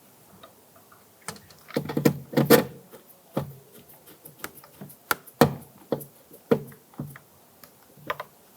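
Irregular knocks and clicks from work on a car's plastic interior door panel while its screws are put back in, with a louder cluster of knocks about two seconds in.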